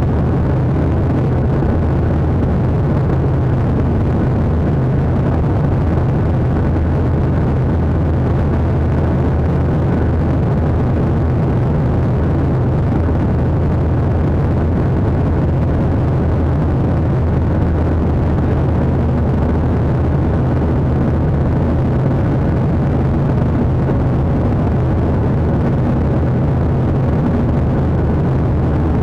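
Jet airliner cabin noise during climb-out: a steady, loud engine drone with rushing air, heard from a window seat over the wing, with a deep, even hum underneath.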